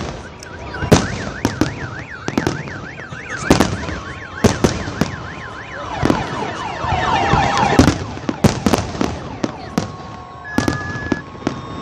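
Fireworks display: aerial shells bursting in a rapid series of sharp bangs, with a dense crackle about six to eight seconds in. A warbling siren-like wail rises and falls for the first few seconds.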